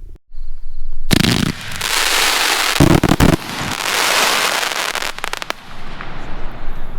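A 36-shot, 30 mm fan fireworks cake with Timerain mine and hammer effects firing its shots in rapid succession: from about a second in comes a dense run of launches and bangs lasting about five seconds, heaviest around three seconds in, thinning into crackle near the end.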